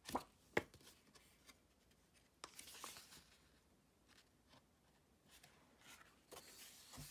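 Faint handling of paper sticker-book sheets: two sharp taps in the first second, then light rustles and small clicks of paper.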